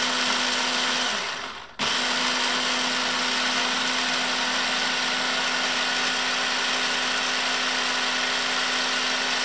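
Electric hand blender with its chopper bowl attachment, mincing garlic cloves and parsley. The motor runs steadily and winds down about a second in. Just under two seconds in it starts abruptly again and runs on steadily.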